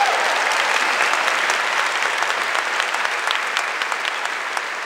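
Audience applauding, a dense patter of many hands clapping that swells in, holds steady and slowly fades toward the end.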